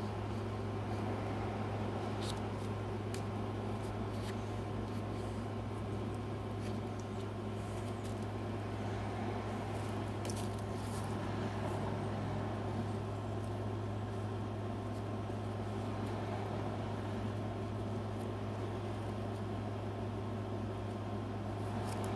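A steady low mechanical or electrical hum, like a running motor or appliance, with a few faint light clicks.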